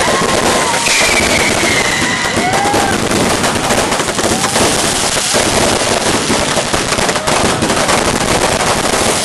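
Fireworks going off at close range: a dense, rapid crackle of bangs that never lets up, with a falling whistle a second or two in.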